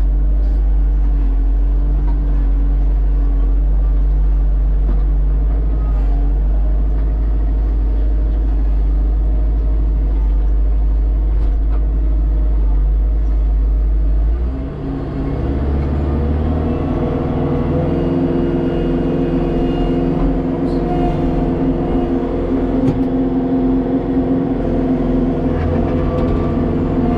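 Kubota tractor's diesel engine running steadily under load with the snowblower working, heard from inside the cab. About halfway through the engine note shifts, dipping briefly and then running on higher.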